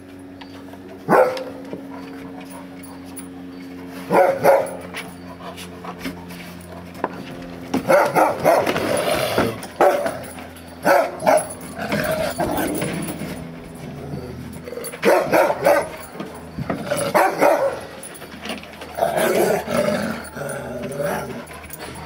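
Newfoundland dogs play-fighting, giving short growls and barks: a couple of single outbursts near the start, then frequent bursts through the rest of the tussle.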